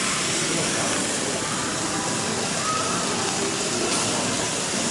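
Steady background hiss and hum of a busy hobby shop with faint voices, while N gauge model trains run on the layout.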